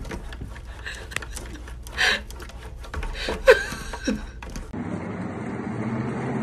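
Cat paws tapping and patting against window glass, a run of light ticks, with two short chirp-like calls about three and a half and four seconds in. After about four and a half seconds this gives way to a steady low hum.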